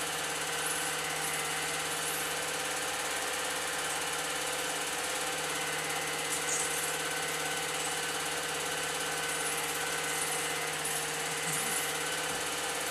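Old 8mm film projector running: a steady mechanical whirr and rattle from its motor and film transport.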